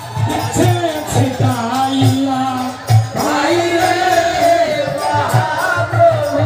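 Devotional singing with long, wavering held notes over a steady drum beat and jingling percussion.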